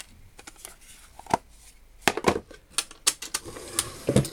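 Metal hand tools being handled and set down, giving a string of irregular clicks and knocks, with a duller knock near the end.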